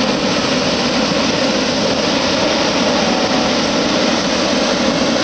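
Hot air balloon's propane burner firing in one long steady blast as the basket lifts off.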